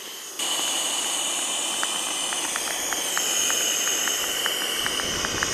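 Steam hissing steadily from a coal-fired live-steam model of the locomotive Russell, starting suddenly about half a second in, with faint irregular ticks over it.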